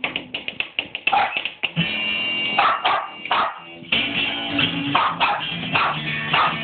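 Acoustic guitar strummed, with a small dog barking several times over it from about a second in.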